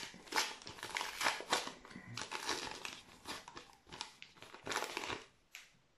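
Wrapper of a Topps Match Attax trading-card pack being pulled open by hand: irregular crinkling and crackling, dying away about five seconds in.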